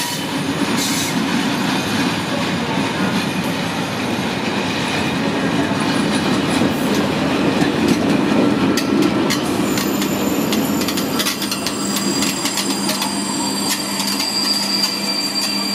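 Passenger train of coaches and an electric locomotive rolling past along a curving platform track: a steady wheel-on-rail rumble with rapid clicks over rail joints in the second half, and a thin high wheel squeal over the last few seconds as the locomotive passes.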